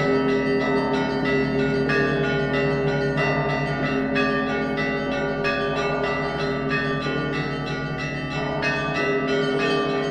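Russian Orthodox monastery bells rung together in a festal peal: rapid, busy strokes of the small bells over the steady hum of the larger bells.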